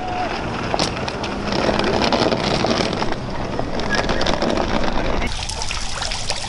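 Outdoor rumble with the rattle of suitcase wheels rolling over pavement. About five seconds in it gives way to the splash and trickle of a fountain.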